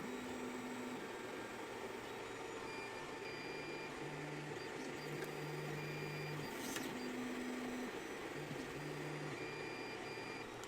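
ELEGOO Mars Pro resin 3D printer's Z-axis stepper motor whining at a couple of steady pitches as the build plate moves between layers. The whine comes in segments about a second long over a steady hum, in a cycle that repeats about every seven seconds.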